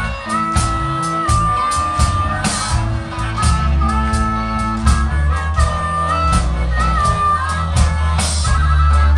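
Live rock band playing an instrumental passage, a harmonica leading with long held notes that step and bend in pitch over electric guitars, bass and a steady drum beat.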